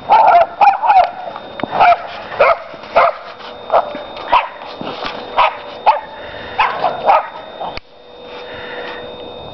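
A dog barking repeatedly in play, in short sharp barks about two a second; the barking stops near the end.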